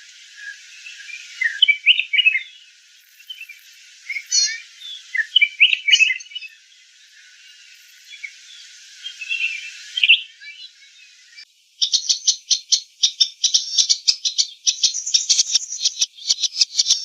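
Small birds chirping and calling in short, scattered phrases. About eleven and a half seconds in, the sound changes abruptly to a fast, steady run of rapid pulses, like a rattling trill.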